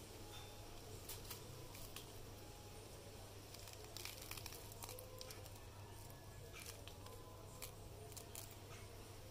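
Faint crinkling and tearing of onion layers and skin being peeled and pulled apart by hand on a sprouting onion, a scatter of small crackles over a steady low hum.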